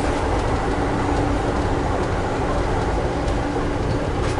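Amtrak passenger coach running fast on the rails: a steady rumble of wheels and running gear, heard from inside the car.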